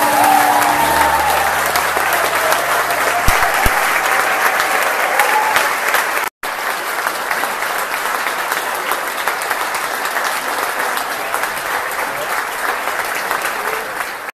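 Large audience applauding in a concert hall. The sound cuts out for an instant about six seconds in, then the applause carries on.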